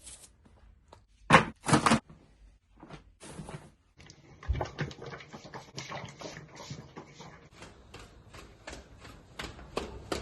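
Two loud sharp knocks about a second and a half in, then, from about four seconds in, a run of quick irregular taps and clicks, like things being handled indoors.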